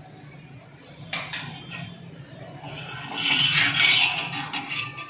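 Metal spatula and tongs clinking and scraping on a hot tawa while a paratha is pressed and turned, with a click about a second in and a rush of oil sizzling under the paratha from about three seconds in.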